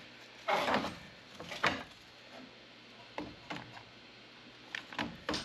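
A hand tubing cutter working on a copper refrigerant line: a series of short, irregular metallic clicks and scrapes as it is turned and handled on the pipe.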